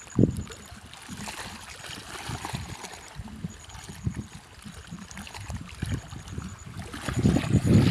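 Water running and gurgling at the bank of a fast-draining reservoir, with irregular low buffeting on the microphone that swells louder near the end.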